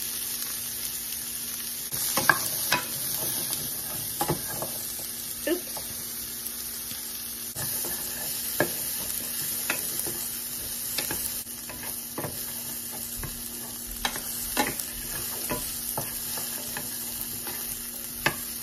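Diced zucchini and yellow squash sizzling in a skillet while a wooden spoon stirs them, knocking and scraping against the pan every second or so.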